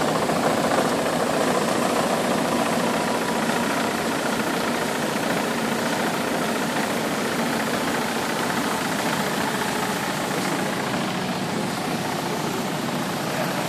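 CEI ECL slitter rewinder running steadily at production speed, the booklet-label web travelling over its rollers with an even mechanical whir.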